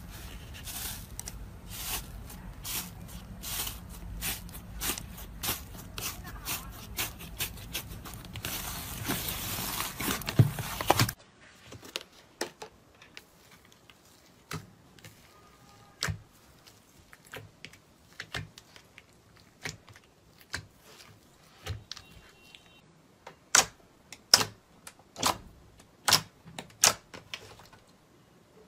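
Slime being squeezed and poked by hand: rapid sticky clicks and pops over a crackling noise. About eleven seconds in it cuts to a quieter clip of sparser slime pops that grow louder and more spaced out near the end.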